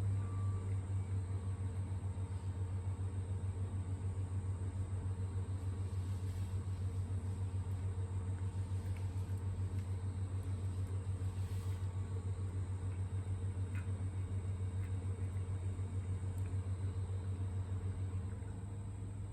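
A steady low mechanical hum with a fast, regular pulsing, like a motor idling. It drops away near the end.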